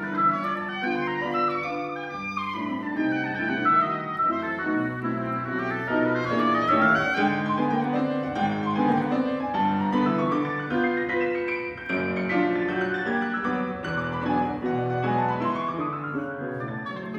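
A woodwind soloist and a Schimmel grand piano playing a classical concert piece: the wind line climbs in several quick upward runs of notes over sustained piano chords.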